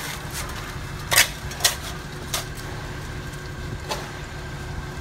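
A concrete mixer truck runs steadily with a low rumble while wet concrete is poured. Four short, sharp knocks and scrapes of shovels working the concrete stand out above it, the loudest about a second in.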